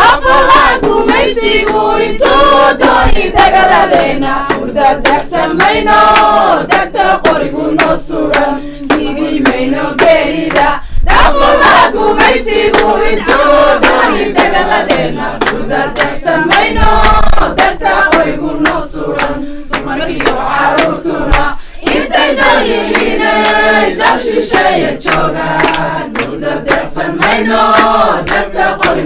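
A group of women and men singing together, with hand clapping keeping the beat.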